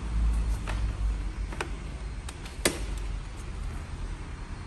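A handful of sharp plastic-and-metal clicks from a pushchair frame being handled, its latches and handle clicking into place, the loudest a little past halfway. A steady low rumble runs underneath.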